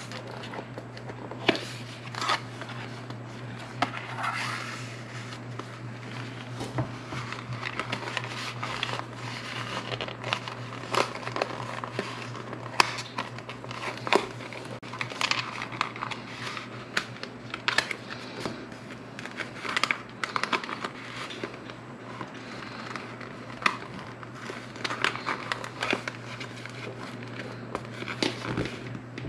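Clear plastic folder pocket crinkling and rustling as paper cards and sticker sheets are slid in and shifted about inside it, with irregular small clicks and taps.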